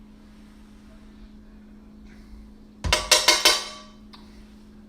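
Metal cookware clanking: a quick run of about five sharp, ringing strikes about three seconds in, as a pot, its lid or a utensil is knocked and handled, over a faint steady hum.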